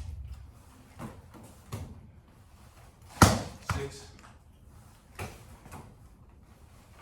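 A few short, sharp thumps spaced irregularly, with a voice calling out a rep count, "six", a little past halfway.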